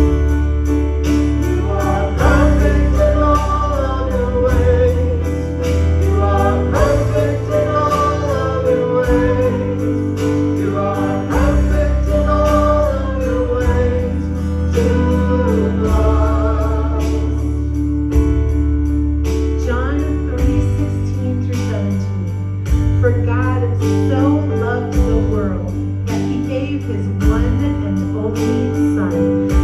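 Worship music with singing: sustained chords over a deep bass that changes note every couple of seconds, a wavering sung melody above, and a steady tick of high percussion.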